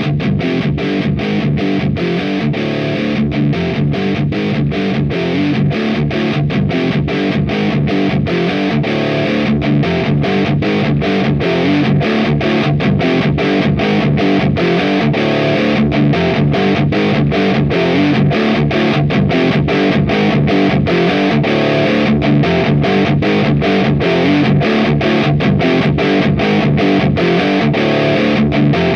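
High-gain distorted electric guitar through an AMT Bricks R/S Lead 12AX7 tube preamp, playing a fast staccato metal riff with the chords cut short by many brief gaps.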